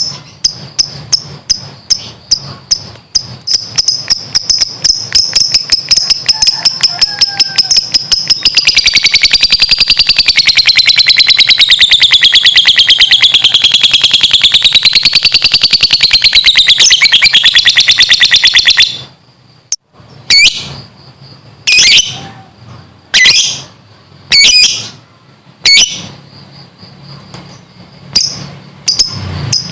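Lovebird singing its long 'ngekek' chatter: high, sharp clicks that speed up over several seconds into a continuous rapid rattle lasting about ten seconds, which stops suddenly. After it come several separate short shrill calls.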